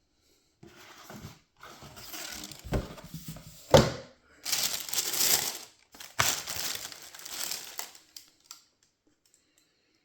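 Paper crinkling and rustling as a sneaker box is unpacked, broken by a few sharp knocks, the loudest nearly four seconds in; it stops a little over eight seconds in.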